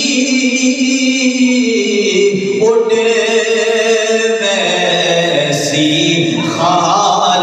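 A man's voice chanting a devotional Islamic verse with no accompaniment, in long held notes that move to a new pitch every second or two.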